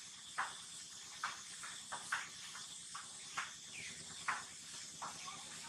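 Baby macaque giving a string of about ten short, sharp squeaks at uneven intervals, one near the middle falling in pitch, over a steady high hiss.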